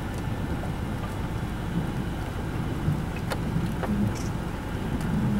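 Steady low rumble of thunderstorm wind, with a few faint ticks about three to four seconds in.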